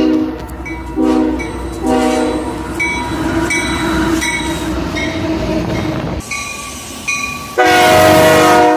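Locomotive air horn sounding a multi-note chord: a few short blasts, then a longer held blast over the rumble of a passing train. About six seconds in, a second, louder horn takes over with one long blast.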